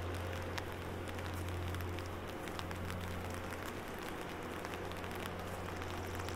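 Light rain pattering on an umbrella overhead, with many scattered drops ticking, over a steady low hum.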